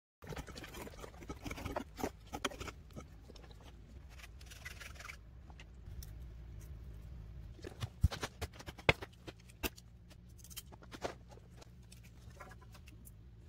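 Campfire crackling, with irregular sharp pops, the two loudest about eight and nine seconds in, over a low steady rumble.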